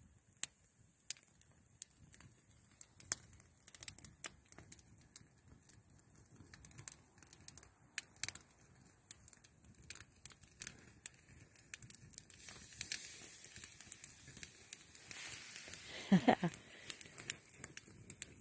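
Wood fire crackling in a stone fireplace, with irregular sharp pops throughout. A brief, louder low sound comes near the end.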